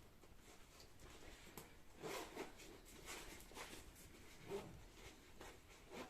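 Near silence in a small room, with a few faint rustles and light handling noises.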